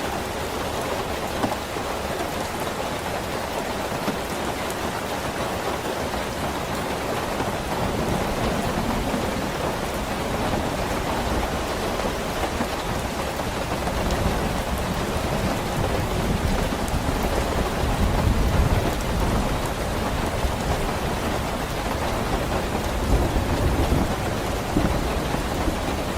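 Steady rain falling, with deep thunder rumbling beneath it that swells about two-thirds of the way through and again near the end.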